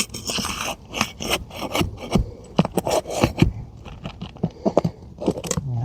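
A metal pry tool scraping and clicking against gritty asphalt roof shingles as a roofing nail is worked out from under a lifted shingle, with irregular short knocks.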